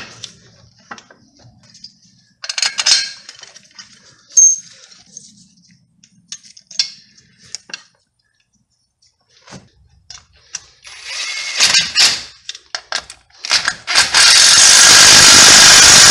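Metal tools and parts clinking and tapping in scattered handling sounds, then near the end an impact wrench runs in one loud burst of about two and a half seconds.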